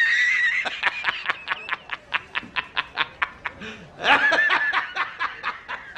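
High-pitched snickering laugh meme sound effect: a squeaky held note breaking into rapid wheezy "heh-heh" pulses, about six a second, done twice.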